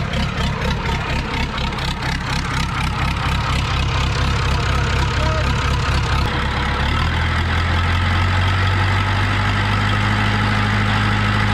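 Perkins marine diesel running freshly started, knocking evenly at idle. About six and a half seconds in its note steadies and strengthens as the revs come up off idle.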